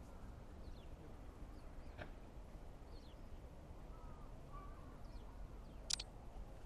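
Faint outdoor evening ambience: a steady low rumble with a few faint, short, high bird chirps, and a sharp brief click about six seconds in.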